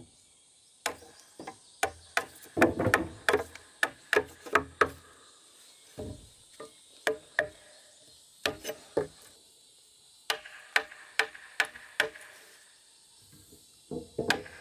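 Steel wood chisel struck repeatedly to cut a notch in a wooden beam, sharp knocks coming in bursts of several blows with short pauses between, wood chips splitting away.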